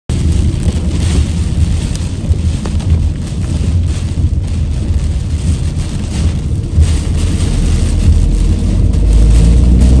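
Typhoon wind and rain buffeting a moving car, heard from inside the cabin: a loud, uneven low rumble with a hiss of rain and wet road over it, turning steadier near the end.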